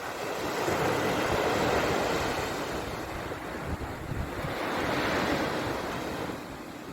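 Sea waves surging in and washing back, two swells one after another, each rising and falling away over a few seconds.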